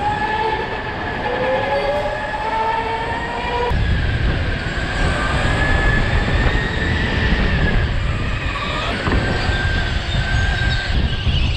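Electric go-kart motor whining and rising in pitch as the kart pulls away, then a steady high whine with a heavy rumble of tyres and wind from about four seconds in as it runs at speed through the corners.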